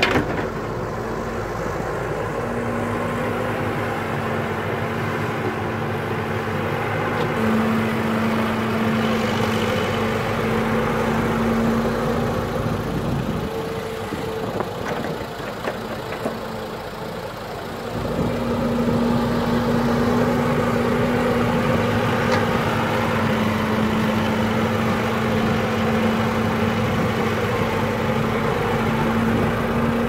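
Caterpillar E120B tracked excavator's diesel engine working under hydraulic load as it digs and loads soil: a steady drone with a held tone, easing off for a few seconds about halfway through, then picking back up.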